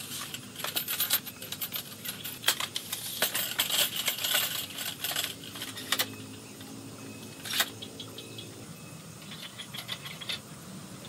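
Metal clicks, clinks and rattles of a telescoping lamp tripod being unfolded and extended, its legs and pole sections sliding and locking into place. The clicking is busiest in the first half, with one sharp click about seven and a half seconds in and lighter clinks near the end.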